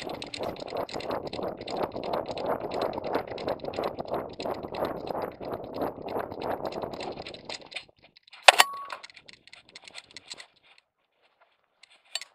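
Rapid, rhythmic jangling and rattling of a dog-vest camera mount and harness, shaken with each stride of a running dog for about seven seconds. Then it stops, followed by one sharp loud click with a brief ringing tone and a smaller click near the end.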